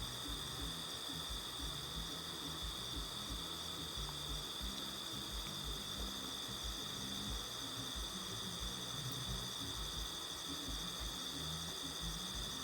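A night chorus of crickets and other insects, a steady high-pitched trilling that does not let up. Under it is a faint, irregular low pulsing.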